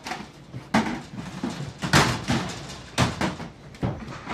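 Lever-operated lime cutter being pulled down to cut limes into wedges: a string of sharp clunks and knocks from the metal press and its lever.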